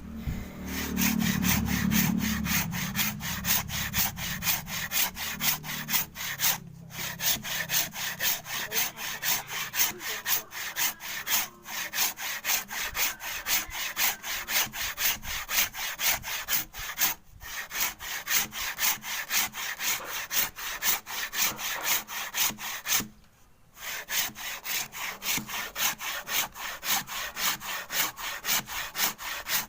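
Hand saw cutting through wood in a steady rhythm of rasping strokes, about two to three a second, while the sharpness of its teeth is tested, with a few short pauses between runs of strokes. A low rumble fades out over the first few seconds.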